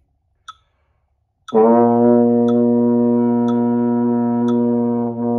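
Euphonium holding one steady low note for four metronome counts, starting about a second and a half in: a sustained-tone exercise where the sound is kept as steady as possible. A metronome clicks once a second throughout.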